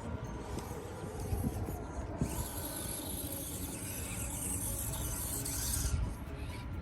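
Axial SCX24 micro RC crawler's drivetrain whirring and rasping as the tires scrabble over rock and grass. A high hiss builds from about two seconds in and cuts off suddenly near the end.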